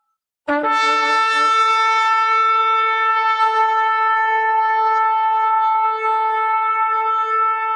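Shofar blown in one long held blast. It starts about half a second in with a brief lower note, then jumps up to a steady, bright, buzzing tone that carries on unbroken.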